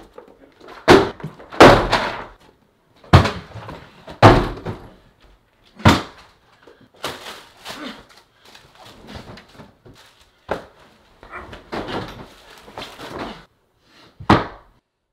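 A series of heavy bangs and thuds, about six loud hits, with quieter knocking and rustling between them in the middle stretch.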